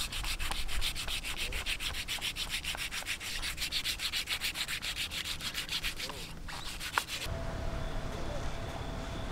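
A knife blade scrapes the scales off a large barramundi in quick, even rasping strokes, about seven a second. About seven seconds in, the scraping stops abruptly and gives way to a steady low background hum.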